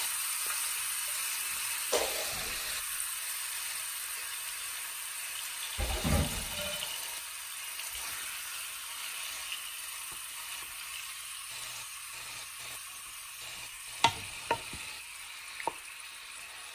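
Marinated cubed chicken breast sizzling in hot olive oil in a deep pot: a steady hiss that slowly dies down as the meat cooks. A few sharp clicks and a duller knock about six seconds in break through the sizzle.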